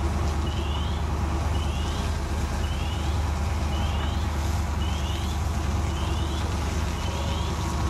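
Heavy fire department vehicle's engine running with a steady low drone, while a short rising electronic chirp repeats about once a second.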